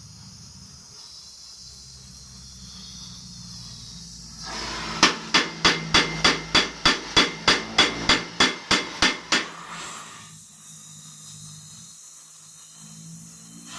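A hammer striking metal in a quick, even run of about fifteen ringing blows over some four seconds, about a third of the way in.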